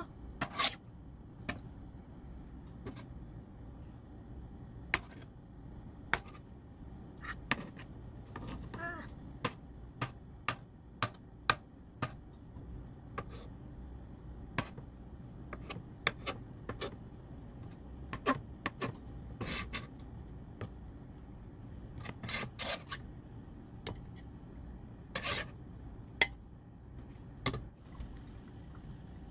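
Kitchen knife cutting a block of soft tofu into cubes on a wood-fibre composite cutting board: irregular sharp knocks of the blade meeting the board, with a quick cluster a little after the middle.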